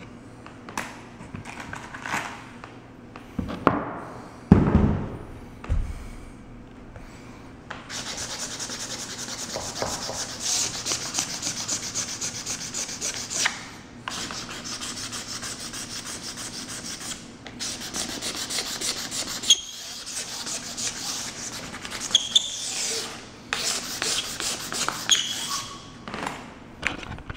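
Oak threshold being sanded by hand: sandpaper rubbed back and forth over the bare oak in long runs of quick strokes with brief pauses. A few knocks and dull thumps come first, the loudest about four and a half seconds in.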